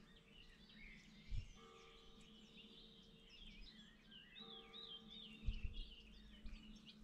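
Small birds singing in quick, warbling chirps over a faint low steady hum, with two short low thumps, about a second in and again past the middle.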